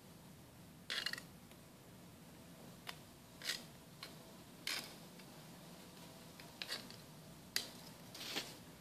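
A metal pliers-type hand tool scraping and clicking against a concrete floor. The sounds are short, faint and spaced a second or more apart, with the longest scrapes about a second in and near the end.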